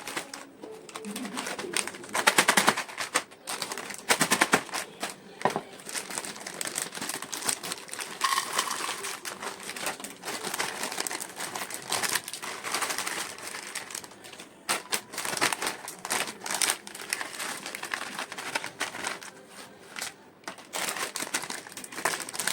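Snack chip packets crinkling and crisp chips crunching, a dense run of rapid crackles and clicks.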